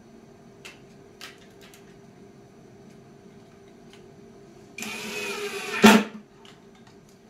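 Cordless drill driving a screw through a metal drawer slide into a plywood drawer side: a whir of a little over a second, the motor pitch dropping as the screw bites, ending in a sharp knock. A few light clicks of the slide and screws being handled come before it.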